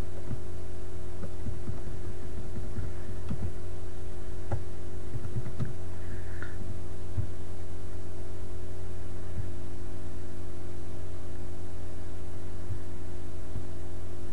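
Steady electrical mains hum in the recording, made of several even tones, with a few faint clicks scattered through it.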